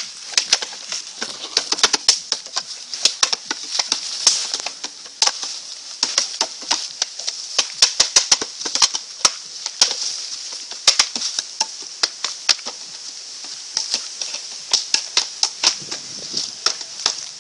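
Hands and forearms knocking against the bamboo arms and post of a homemade Wing Chun wooden dummy (mook jong), in quick irregular runs of sharp wooden clacks, often several a second.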